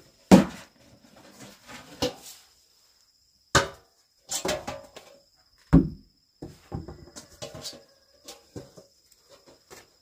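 Irregular knocks and clatters of hard, wooden-sounding objects being handled and set down, about a dozen in all, the loudest just after the start and again near six seconds in. A faint, steady high whine sits behind them.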